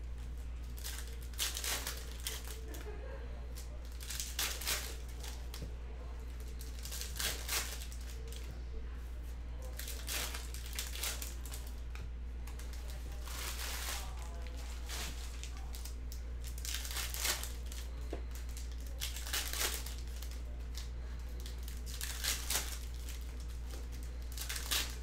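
Trading-card pack wrappers being torn open and crinkled, in irregular short crackly bursts, over a steady low electrical hum.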